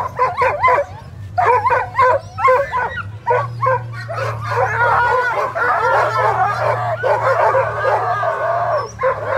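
A harnessed sled dog team at the start line yelping, barking and howling all together in their eagerness to run. The first few seconds are short, overlapping yelps, which give way to a chorus of longer howls. A low, steady hum runs underneath.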